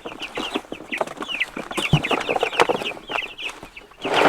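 A crate of young meat chickens peeping rapidly, many high short chirps overlapping, with scattered knocks and a loud rush of noise near the end.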